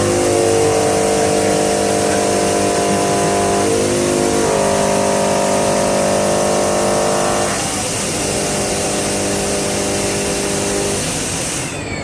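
Soitaab OmniaTech plate-fabrication machine running: a steady loud hiss over several whining tones that shift pitch in steps every few seconds. The hiss cuts off suddenly near the end.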